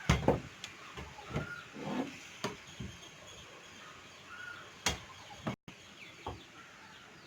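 Scattered clicks and knocks from the parts of a disassembled Godrej typewriter's mechanism being handled, the loudest right at the start. A few short bird chirps sound in the background.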